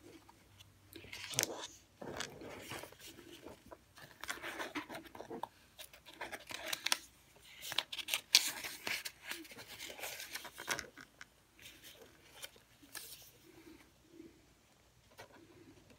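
Quiet paper rustling and scraping as the stiff pages of a hardback altered-book junk journal are turned and handled and a paper tag slides in its pocket, in irregular bursts with a few sharp clicks, thinning out near the end.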